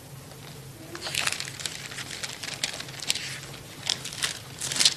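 Thin Bible pages being leafed through by hand: a quick run of papery flicks and rustles starting about a second in, loudest near the end, as the reader searches for a passage.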